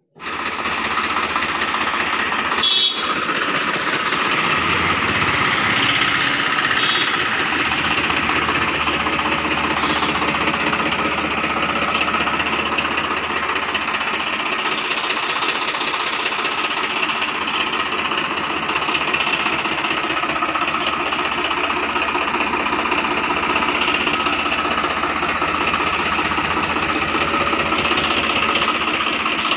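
Swaraj 855 FE tractor's three-cylinder diesel engine idling steadily close by, a fast even mechanical rhythm, with a short click about three seconds in.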